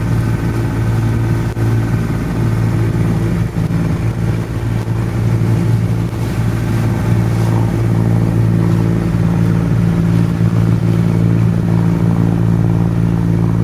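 Small wooden fishing boat's engine running steadily under way, a continuous low drone.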